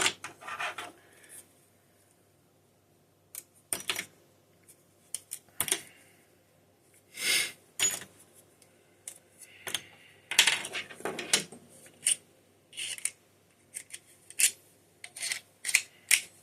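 Small steel screwdriver bits clicking and clinking against each other and their holders as they are handled and sorted, in irregular bursts of sharp clicks. There is a short pause about two seconds in, and the clicks come thickest in the second half.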